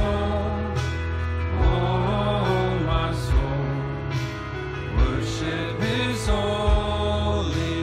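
Live Christian worship band playing through an outdoor PA, heard from within the crowd: a sung melody over sustained chords and a steady drum beat.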